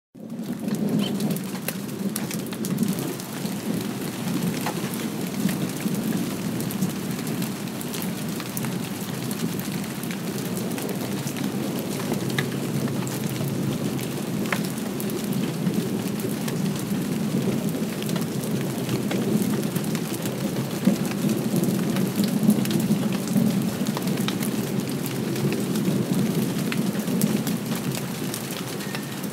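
Steady light rain with scattered raindrop ticks. Distant thunder rumbles low underneath, swelling and easing.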